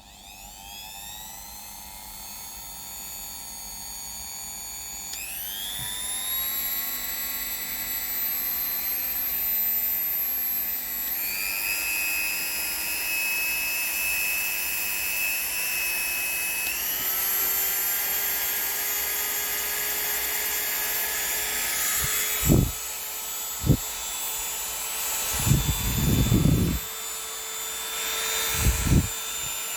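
Corded rotary tool motor starting with a high whine, then stepping up in pitch three times as its speed is raised. Several short, loud knocks or bursts of contact noise come near the end.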